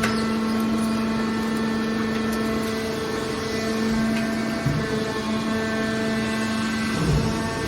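Hydraulic scrap metal baler shear running with a steady hum that wavers briefly twice, about five and seven seconds in.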